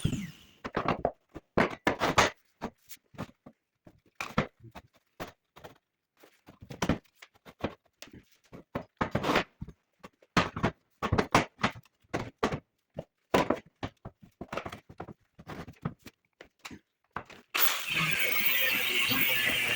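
Irregular knocks, clunks and clicks of metal parts and tools being handled and fitted, one at a time with short pauses between. Music comes in near the end.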